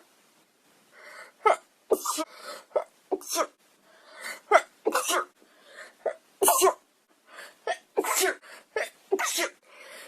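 A young woman sneezing over and over in a fit, a dozen or more short, sharp sneezes coming about half a second to a second apart with brief quiet breaths between.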